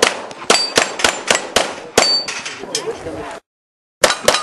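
Rapid string of pistol shots at steel targets, each shot followed by the clang of a struck steel plate. Six or seven shots come in the first two seconds. The sound drops out abruptly for about half a second near the end, then two more shots follow in quick succession.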